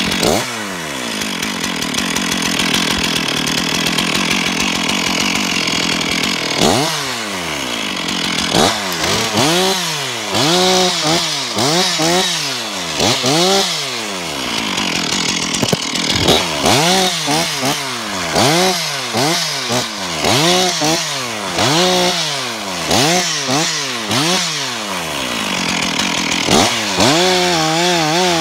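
Stihl 046 two-stroke chainsaw running, then revving up and dropping back again and again, about once a second, as it cuts through small pine stems while thinning.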